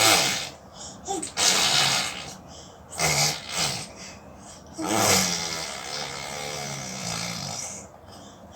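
A baby imitating a car engine with its voice: a few short breathy, spluttering bursts, then from about five seconds in a longer wavering droning hum that stops shortly before the end.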